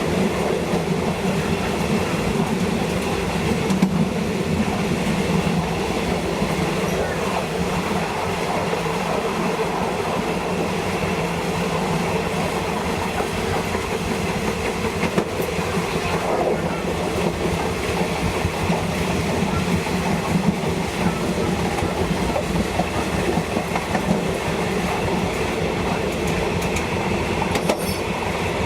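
Thai passenger train running steadily, heard from on board: a continuous rumble of the running gear with wheels clattering over the rail joints.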